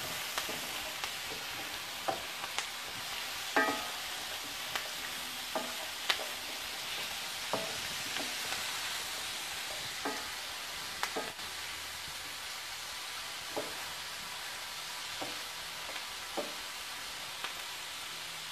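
Diced apples and onions sizzling in bacon fat in a stainless steel skillet while a wooden spatula stirs them, knocking against the pan at irregular moments about a dozen times, a few knocks making the pan ring briefly.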